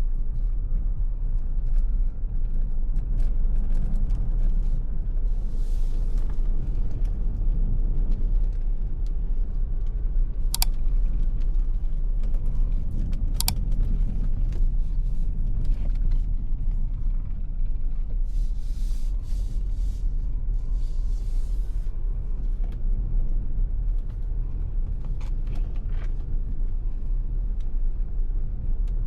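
Ford Territory Titanium X Hybrid driving along at steady speed, a continuous low road and tyre rumble with two brief sharp clicks about ten and thirteen seconds in.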